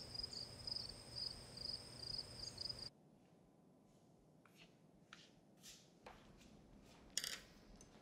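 Crickets chirping in a steady pulsing trill that stops abruptly about three seconds in; then faint, short scratching strokes of a coloured pencil on paper, with one sharper tick near the end.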